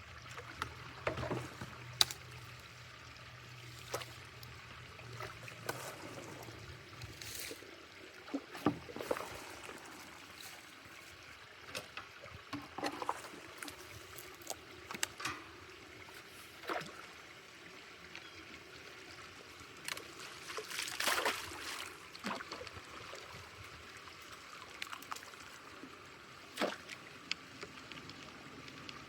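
Water trickling and running, with scattered splashes and sharp knocks throughout, as a beaver-clogged culvert is worked clear.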